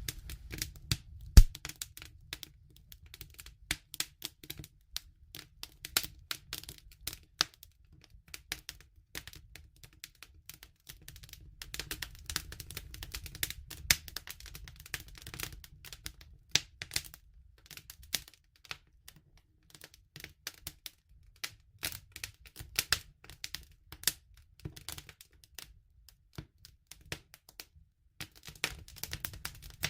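Wood fire crackling: a constant stream of irregular snaps and pops over a low steady rumble of the flames, with one sharp loud pop about a second and a half in.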